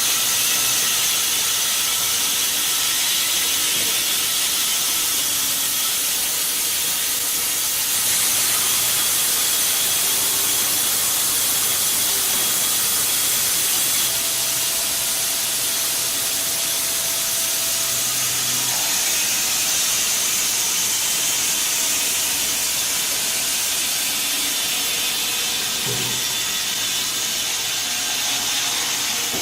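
Steady hissing machine noise with faint steady tones beneath it, changing abruptly about 8 and again about 14 seconds in.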